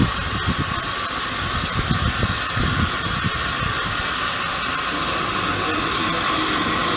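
Narrow-gauge steam locomotive working toward the listener: uneven exhaust chuffs for the first three seconds, then a steady hiss of steam escaping from around the cylinders, growing a little louder as it nears.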